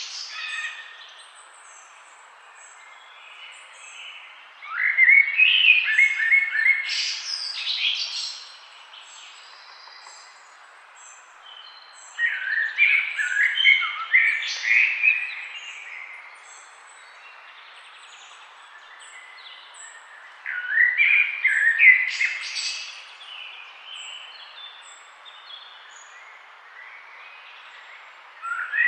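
Forest songbirds singing: a loud song phrase of about three seconds comes roughly every eight seconds, with faint high chirps from other birds and a steady soft hiss between phrases.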